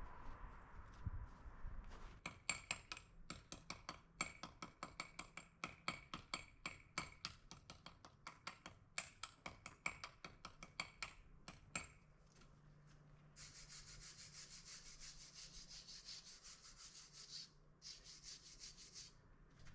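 Rapid rubbing, scraping strokes, about four or five a second for several seconds. They give way to a steadier high hiss that breaks off briefly twice.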